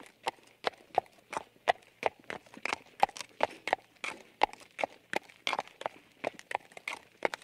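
Horse hooves clip-clopping at a walk: sharp, even knocks about three a second.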